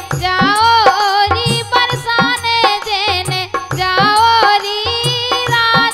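Bundelkhandi folk devotional song: a woman singing to harmonium, with a dholak drum keeping a steady beat whose deep strokes slide down in pitch.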